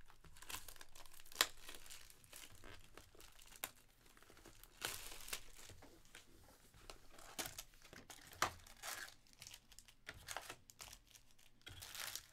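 Plastic shrink wrap being torn and crinkled off a sealed trading-card hobby box: faint, irregular crackling with scattered sharp clicks.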